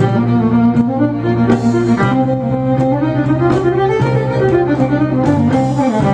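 Live Celtic fusion instrumental: a fiddle carries a moving melody over a held bass line, with scattered drum hits.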